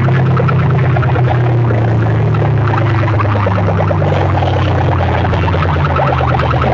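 Large competition DJ sound-box system playing at high volume, mostly deep, distorted bass notes that shift in pitch, with a rapid rattling buzz above them.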